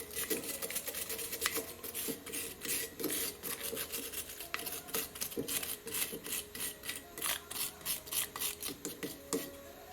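Brisk back-and-forth scraping strokes, several a second, of a tool scrubbing or rasping the metal brake caliper parts clean; the strokes stop just before the end.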